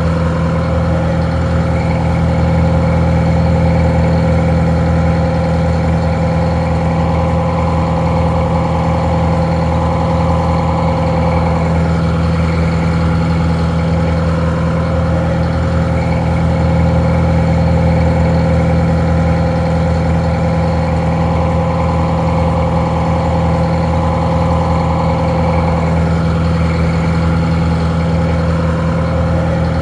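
Detroit Diesel 4-71 two-stroke diesel engine idling steadily, a winch power unit, sounding a little muffled.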